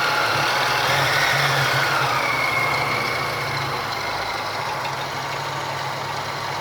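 Great Wall Safe SUV engine idling with a steady low drone and a faint whine that wavers in pitch during the first half. The owner suspects a knock in the engine.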